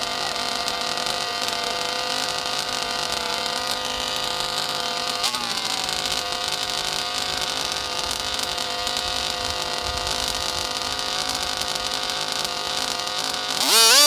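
Small two-stroke engine of a large-scale gasoline RC buggy idling steadily, with a brief throttle blip about five seconds in. Near the end it revs up sharply to full throttle as the buggy launches.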